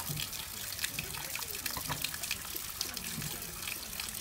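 Thin streams of water falling from bamboo spouts and splashing onto a capybara's back and the wet stone floor: a steady trickle dotted with many small splashes.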